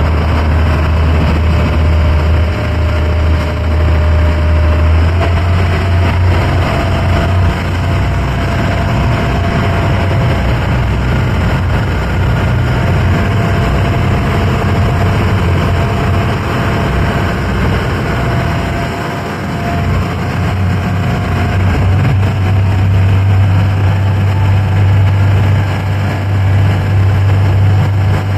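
Small ferry's engine running steadily, a deep low drone. It dips briefly about two-thirds of the way through and comes back a little lower in pitch.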